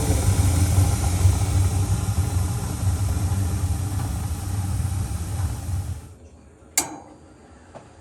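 A 37-year-old Carrier gas furnace running with its burners lit: a steady low hum and rush. It cuts off suddenly about six seconds in, followed by a single sharp click.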